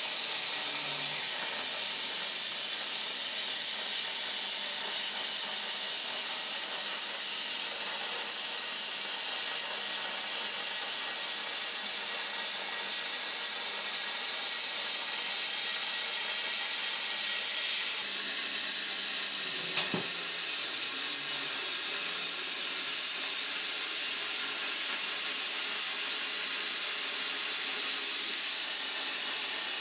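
CNC plasma torch cutting through 11 mm plate: a steady, even hiss of the plasma arc, with one short pop about two-thirds of the way through.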